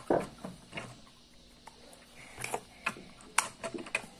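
Light, irregular clicks and taps of plastic play-dough toys and tubs being handled on a wooden table.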